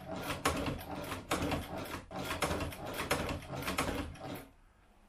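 Sfeomi hand-cranked cobbler's sewing machine stitching leather as its hand wheel is turned: a quick, even run of mechanical clattering strokes, about three a second, which stops about four and a half seconds in.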